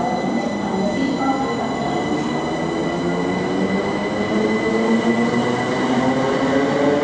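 c2c Class 357 Electrostar electric multiple unit accelerating away from the platform, its traction motors whining in several tones that climb together as it picks up speed, over steady high-pitched tones.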